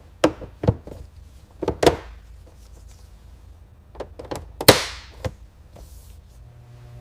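A series of sharp knocks and clunks from parts and tools being handled during mechanical work on a car. There are two near the start, two a little before the 2-second mark, and a cluster around two-thirds through, where the loudest clunk trails off briefly.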